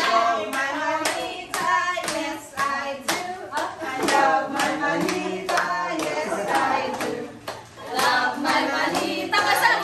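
A group of people clapping along in a steady rhythm, about two claps a second, while voices sing together.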